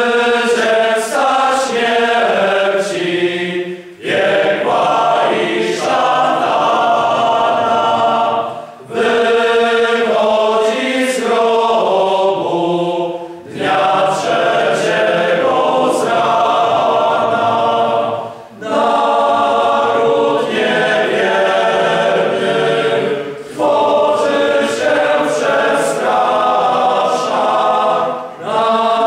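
Male choir singing a Polish Easter hymn a cappella in three-part harmony. The hymn moves in phrases of about four to five seconds, with a brief break for breath between them.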